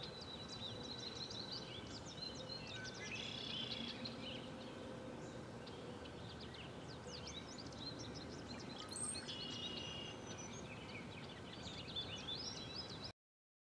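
Outdoor ambience: many small birds chirping over a steady background hiss, with a short buzzy trill coming back every six seconds or so. The sound cuts off suddenly near the end.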